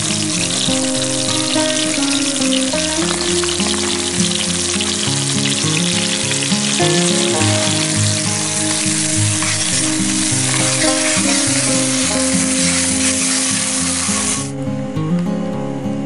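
Baung catfish frying in hot oil: a loud, steady sizzle over background music with changing notes. The sizzle cuts off suddenly near the end, leaving the music.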